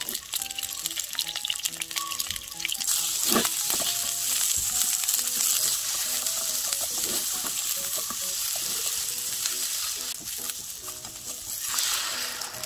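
Peeled boiled eggs and sliced onion sizzling in hot oil in a nonstick frying pan while being stirred with wooden chopsticks. The sizzle grows louder about three seconds in. Near the end there is a louder surge as water goes into the hot pan.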